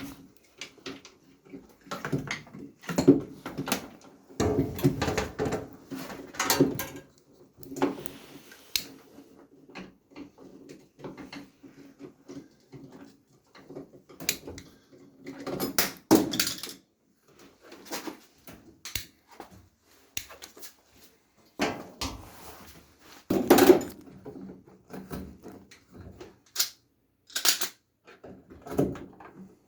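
Metal furnace parts and screws being handled: irregular clanks, knocks, scrapes and rattles, with short pauses between them.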